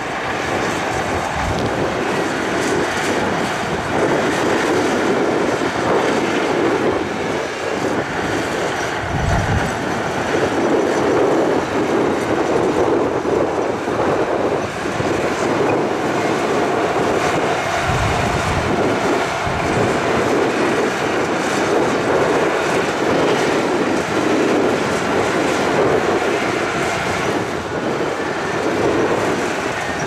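Heavy tracked earthmoving machinery working: diesel engines running under load with a steady metallic clatter and squeal of steel crawler tracks.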